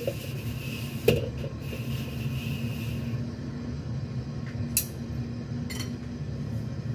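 A cloth wipes a black wok dry over a lit stove for the first three seconds or so, with a sharp knock about a second in. A steady low rumble runs underneath, and a couple of light clicks come near the end.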